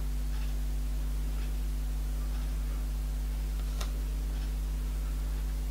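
Steady low electrical hum with a clock ticking faintly about once a second, and one sharper click a little before four seconds in.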